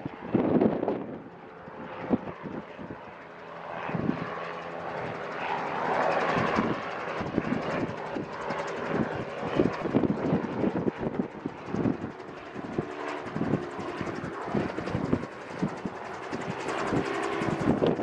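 Engine of an ELA gyroplane droning steadily in slow flight overhead, while gusty wind buffets the microphone.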